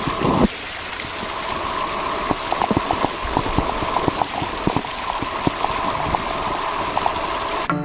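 Steady hiss of water with many small drips and ticks through it; it stops abruptly near the end.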